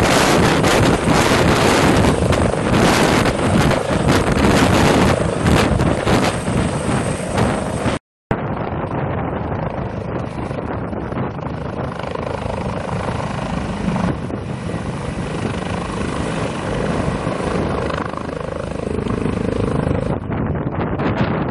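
Airbus H145M helicopter, its twin-turbine engines and rotor running loud with a rapid beating from the blades. About eight seconds in the sound breaks off for an instant and resumes quieter and duller, as the same helicopter's noise heard from a different moment.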